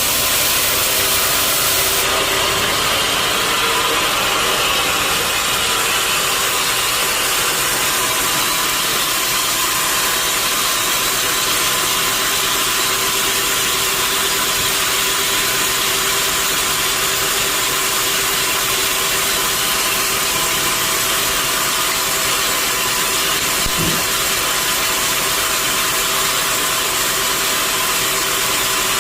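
Sawmill machinery running steadily: a loud, even mechanical noise with a steady hum, and one brief knock about 24 seconds in.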